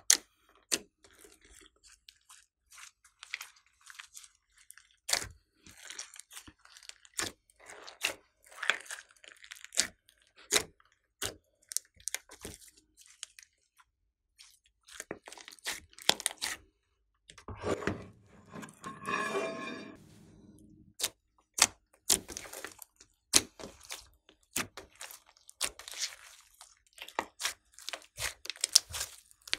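Glossy slime mixed with clay and glitter being stretched, folded and squeezed by hand, giving many sharp, irregular clicking pops and wet crackles. About two-thirds of the way in comes one longer squelch with a tone to it.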